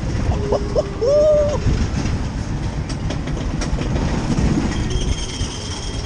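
Roller coaster car running along its steel track: a steady rumble and clatter of the wheels on the rails.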